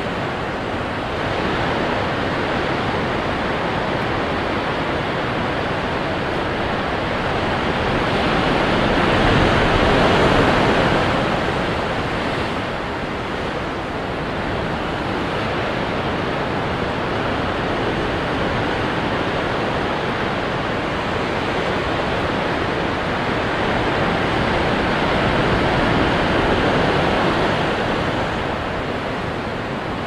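Ocean surf: waves breaking and washing in, a steady rush that swells louder about ten seconds in and again about twenty-five seconds in.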